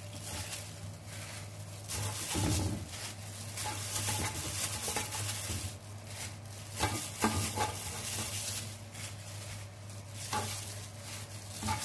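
Plastic-gloved hands rustling and shifting potato slices in a ceramic baking dish, in short irregular bursts of crinkling and soft taps, with a steady low hum underneath.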